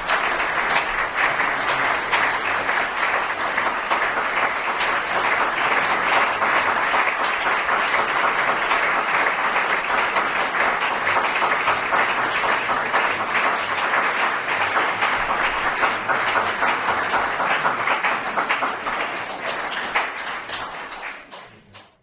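Audience applauding at the end of a lecture: dense, steady clapping that fades over the last couple of seconds and is cut off.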